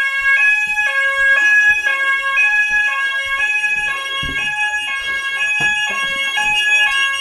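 Fire alarm sounders sounding on test: a two-tone warble switching about twice a second over a steady high tone. The sounders are now working after being fixed. A few knocks come partway through.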